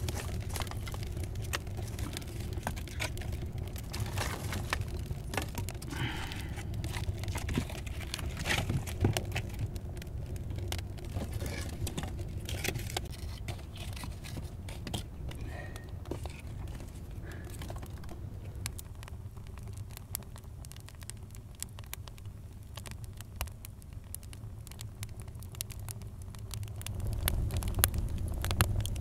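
Dry sticks rustling and snapping as they are handled and pushed into the firebox of an adobe rocket stove, over the crackle and pops of the wood fire burning inside. Near the end the fire gets louder, with sharp pops.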